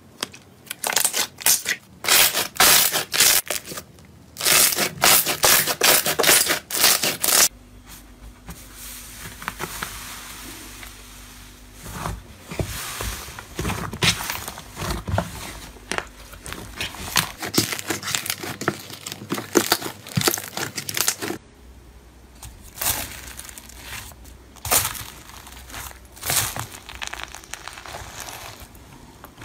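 Hands stretching and pressing slime, making crackling and popping sounds in loud clusters for the first seven seconds. Then comes a quieter stretch of pressing a fluffy white slime. Near the end, foam-bead slime crunches in separate strokes.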